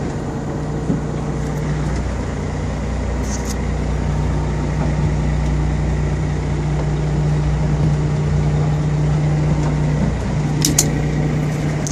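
Fishing boat's engine running with a steady low hum, heard from inside the wheelhouse. A couple of brief clicks, one about three seconds in and one near the end.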